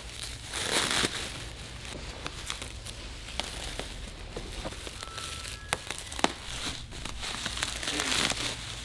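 Bubble wrap crinkling and rustling as it is cut with scissors and pulled open by hand, with many small sharp crackles.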